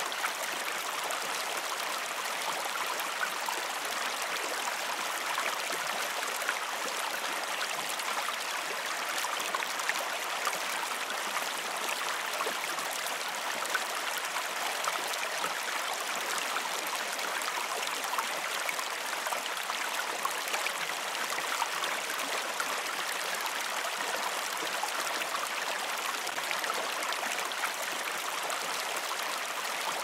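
Stream water running in a steady, even rush, mostly a bright hiss with very little deep rumble.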